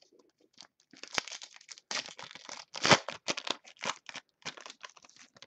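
Foil wrapper of a trading-card pack crinkling and tearing as it is ripped open by hand, a run of crackly rustles with a couple of sharper snaps.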